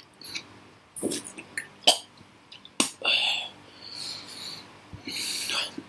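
A man coughing, clearing his throat and breathing hard in short bursts as he forces down a fried insect grub, with a couple of sharp clicks in between.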